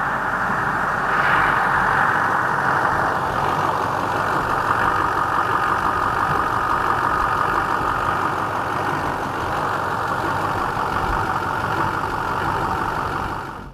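Freshly rebuilt Duramax 6.6-litre V8 turbodiesel idling steadily after its first start following a head gasket and head stud job. It cuts off suddenly near the end.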